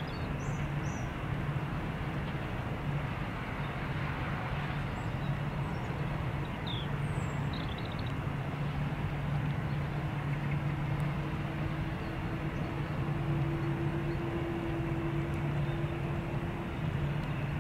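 Jet engines of an Airbus A320-family airliner idling as it taxis, a steady distant rumble with a low hum; a faint higher tone joins about halfway through.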